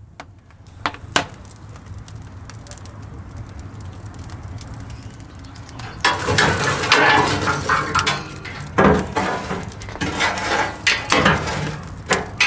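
Glowing charcoal in a wood-fired braai grill's firebox being raked with a metal poker: scraping and clinking of embers against metal that starts about six seconds in and carries on. Before that the fire crackles faintly with a few pops.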